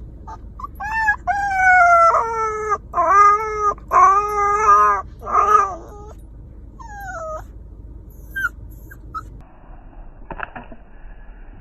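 Dog howling: a run of long, wavering howls, then a few shorter whines, with a single knock near the end.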